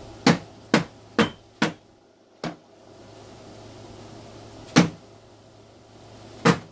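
Cardboard egg-crate carton knocked against a plastic storage bin to shake Dubia roaches off: four quick knocks about two a second, a light tap, then two more knocks a couple of seconds apart.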